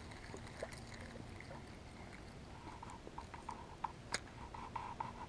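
Faint clicks and ticks from a spinning fishing reel being handled, with a quick run of light ticks from about halfway and one sharp click a little after four seconds.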